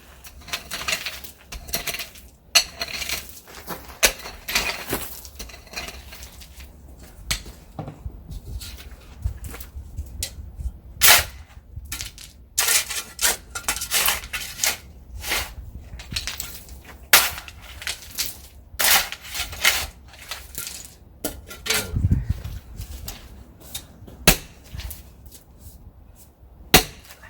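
A shovel digging and scraping into the ground to level it, giving irregular sharp scrapes and knocks.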